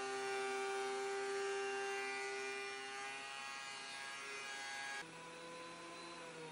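DeWalt benchtop thickness planer running with a steady whine as a board is fed through on a test pass, its feed rollers freshly cleaned. About five seconds in the sound drops suddenly, and the pitch then falls as the motor winds down.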